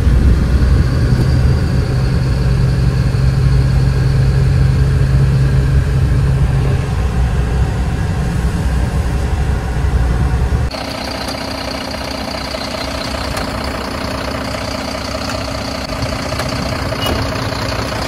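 BharatBenz truck's diesel engine running while driving, heard from inside the cab as a loud, low drone. About ten seconds in it cuts to a quieter, steady hum of the truck idling, heard from outside.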